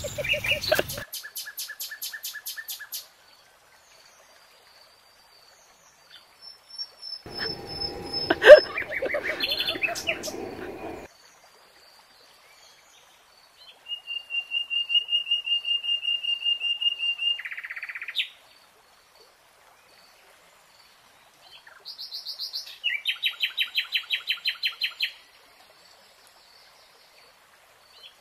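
Bursts of bird chirping and trilling, each separated by dead silence, like sound effects: a fast trill at the start, a louder, harsher call about a third of the way in, then two more rapid, steady trills later on.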